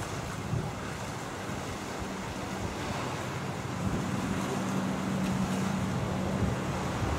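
ATR-72 twin turboprop climbing out after takeoff: the rushing noise of its engines and six-bladed propellers with a steady low hum that grows stronger about four seconds in, mixed with wind buffeting the microphone.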